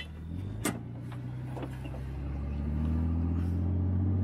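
Off-road recovery vehicle's engine pulling under load in soft sand while towing a stuck SUV on a rope. It revs up about two and a half seconds in and holds at the higher, louder pitch. A single sharp knock comes near the start.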